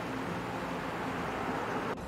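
Steady rush of river water running over rocks, with faint background music underneath; the rush cuts off just before the end.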